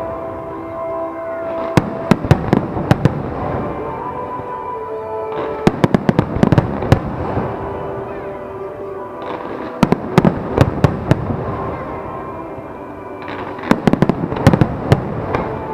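Aerial fireworks bursting in volleys of rapid sharp cracks, one volley about every four seconds, over steady background music.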